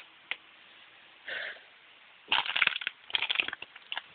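Two sharp clicks near the start, then from about halfway an irregular run of crunching and rustling.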